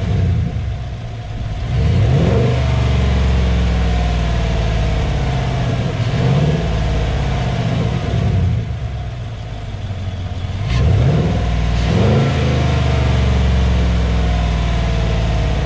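2018 Chevrolet Silverado 1500's V8 engine, heard from the engine bay with an Airaid Jr cold air intake fitted, blipped about four times. Each rev rises in pitch and then drops back slowly to a steady idle.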